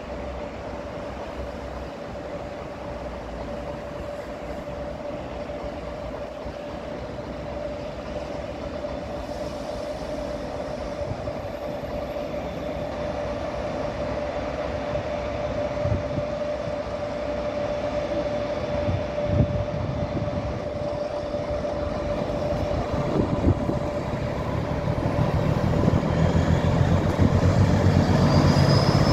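ČKD 'Hummel' (Čmelák) diesel locomotive running and drawing nearer, its engine drone growing steadily louder and turning to a deep rumble in the last few seconds. A steady whine sits underneath throughout.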